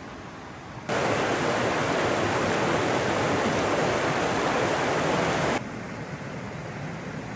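Rushing water, a steady roar like a waterfall. It cuts in loud about a second in and drops back abruptly to a fainter steady rush after about five seconds.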